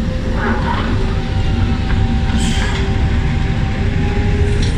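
British Rail Class 37 diesel-electric locomotive 37264 running slowly past at close range. Its English Electric V12 diesel engine gives a heavy low rumble with a steady whine over it, and there are two short metallic squeaks.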